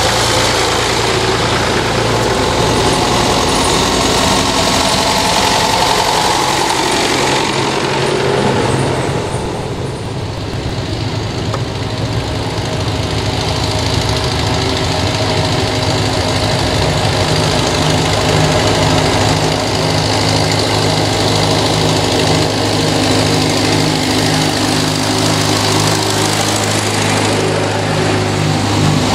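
Vintage farm tractor engines running as the tractors drive past one after another. The sound eases briefly about ten seconds in, between tractors, then the next tractor's engine draws closer with an even pulsing beat.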